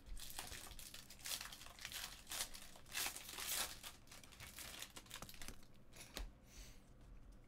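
Trading card pack wrappers crinkling and tearing as packs are opened, with cards rustling, in irregular clusters that are busiest around the middle.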